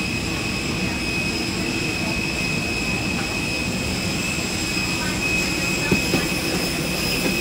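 Steady interior noise of a passenger transport vehicle: an even roar with a high, steady whine above it, and two brief knocks about six seconds in.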